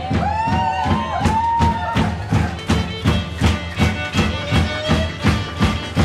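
Large folk band playing a lively Resian dance tune: fiddles carry a sliding melody over a steady, driving drum beat of about two and a half strokes a second.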